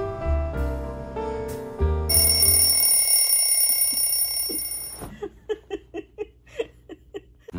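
Piano music ends about two seconds in, then an alarm or phone ringing tone sounds steadily for about three seconds. A quick run of short, plinking notes follows, about four or five a second, until near the end.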